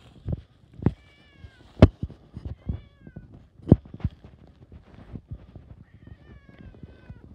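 Domestic cat meowing about three times, short pitched calls with a longer one near the end, between scattered sharp knocks.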